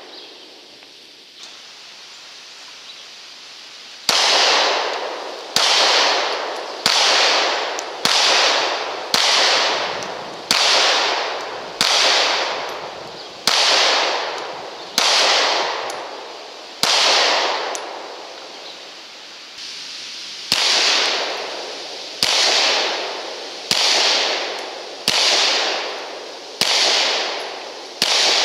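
Slow, steady single shots from a 9mm Glock 26 pistol, about one every second and a half from about four seconds in. Each report rings out and dies away over about a second.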